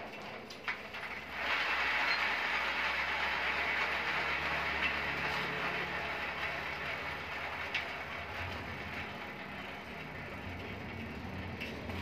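Bicycle rear wheel spun by turning the pedals by hand on the kickstand: the chain and rear sprocket run with a steady whirring rattle that starts about a second in and slowly dies away as the wheel coasts.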